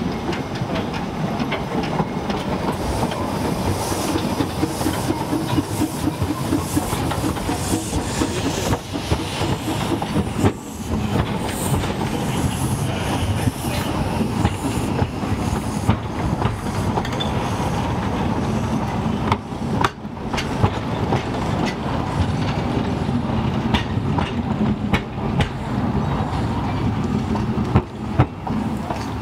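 Narrow-gauge steam train pulling out and running past: the locomotive working in steam, then a rake of wooden coaches rumbling by, wheels clicking over the rail joints.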